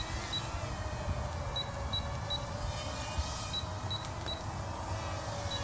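Short high-pitched electronic beeps from a toy drone, sounding in quick groups of three about every two seconds, over a steady low rumble.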